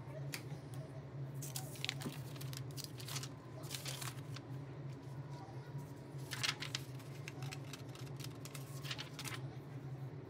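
Sheets of drawing paper rustling and sliding as they are handled, in several short bursts, over a steady low hum.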